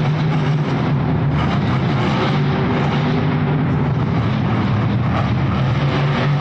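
A monster truck's supercharged V8 engine running loud and steady, a continuous drone with no breaks.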